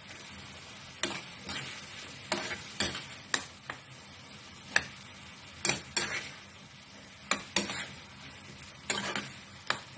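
Spoon stirring diced tomatoes and chillies in a frying pan, knocking and scraping against the pan about a dozen times at an uneven pace, over a soft steady sizzle from the frying food.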